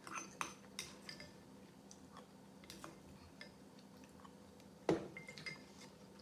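A plastic spoon scraping and clinking against a ceramic soup bowl while the last of a cold beetroot soup is scooped up. There is a louder knock about five seconds in as the spoon and bowl are set down, followed by a few lighter clicks.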